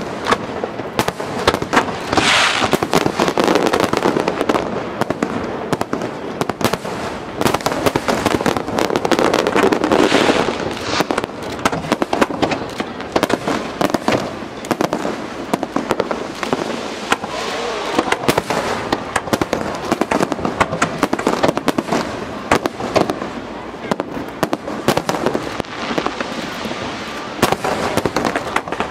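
Aerial firework shells bursting in quick succession: a dense, unbroken string of bangs and cracks.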